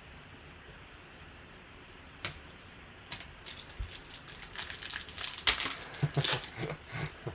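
Trading cards and their packaging being handled: a single click about two seconds in, then a quick run of crackling clicks and rustles from about three seconds on.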